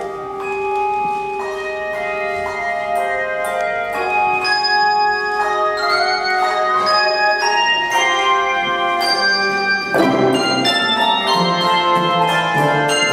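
Handbell choir playing a piece: many handbells struck one after another, their notes ringing on and overlapping. The music grows louder about four seconds in, and a fuller chord with lower notes comes in about ten seconds in.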